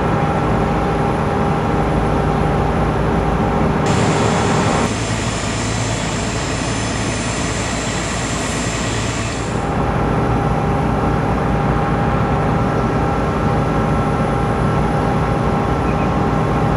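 Airbus A380 jet engines running at takeoff: a steady loud rush of jet noise with several whining tones. About four seconds in the sound changes abruptly, gaining a high whine, and switches back about ten seconds in.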